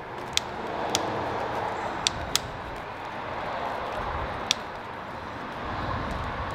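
Handling of the electric dirt bike's wiring connectors and front-end parts: five short, sharp clicks, two of them in quick succession, over a steady low hiss.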